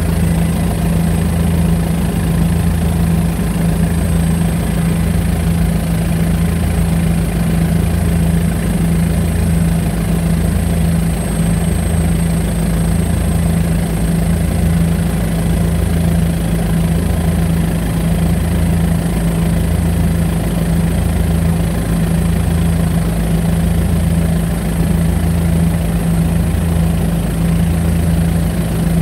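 Aircraft engine drone heard inside the cockpit: a steady, loud low hum with a lower throb that pulses regularly about once a second.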